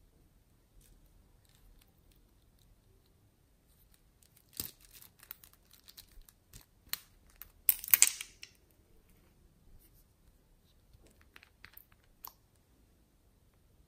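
Hands handling slime-making containers and trinkets: scattered small clicks and rattles, with a short crinkly, rattling burst about halfway through that is the loudest sound.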